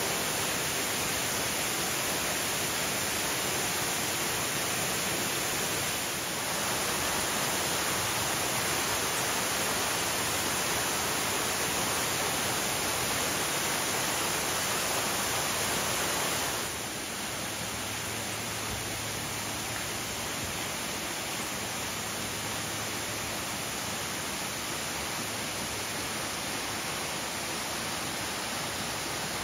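Steady rushing and splashing of a waterfall falling into a pool, dropping a little in level about seventeen seconds in.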